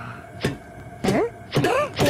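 A cartoonish voice making three short comic vocal sounds whose pitch swoops down and up, about half a second, one second and near the end, with a louder one starting right at the close.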